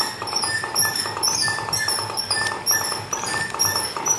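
Electronic toy horse playing its fast-trot sound effect: a quick, evenly repeating clip-clop pattern with tinkling high tones, about three beats a second.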